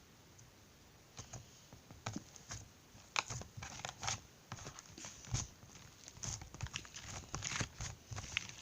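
Fluffy slime being squished and pulled apart in the hands, making irregular sticky crackles and pops that start about a second in.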